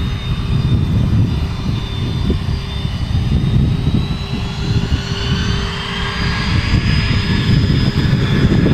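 Twin Williams FJ44 turbofan engines of a Cessna Citation CJ2+ business jet running as it taxis and turns onto the runway: a steady high whine over a low rumble. The whine climbs in pitch and grows louder over the last few seconds as the jet swings round to face head-on.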